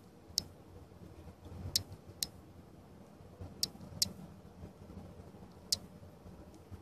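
Faint, sharp clicks, six or seven at irregular spacing, over a low steady hum: fingers handling and bending the thin lead wires of an LED puck light.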